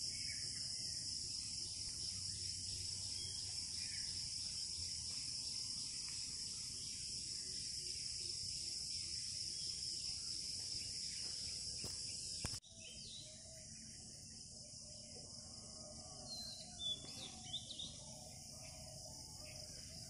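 Steady, high-pitched chorus of insects. It drops abruptly in level a little past halfway, and a few short bird calls come in near the end.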